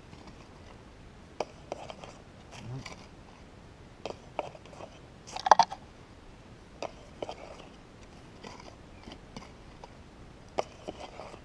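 Soil being scraped and raked by hand in a shallow hole: scattered short scratches and crunches of dry, gravelly dirt and leaf litter, with a louder crunch about halfway through.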